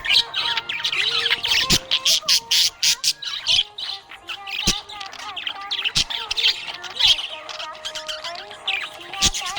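Budgerigars chirping and chattering in a rapid, continuous stream of short high chirps and squawks, with a few sharp clicks.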